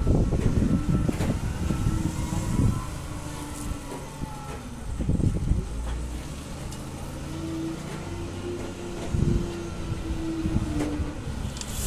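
SDLG wheel loader's diesel engine running and revving up and down as it drives with a loaded bucket and raises the boom, with bouts of clattering machinery noise.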